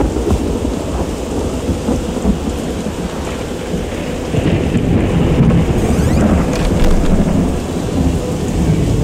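Loud, low rumbling noise with a thinner hiss above it, swelling a little past the middle.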